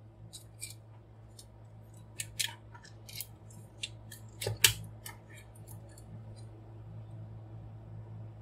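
Scattered clicks and small knocks of a transforming robot toy's joints and panels as they are handled and adjusted, about a dozen over the first five seconds, the loudest about four and a half seconds in.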